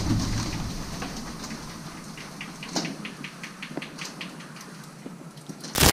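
Burning steel wool spun on a line, its sparks crackling and pattering like light rain, with a run of quick ticks in the middle. A short loud rustle comes near the end.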